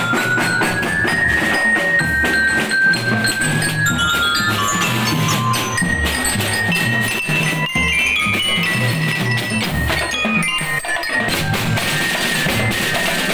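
Marching drum and lyre band playing: a bright bell-lyre melody over a steady beat of snare and bass drums.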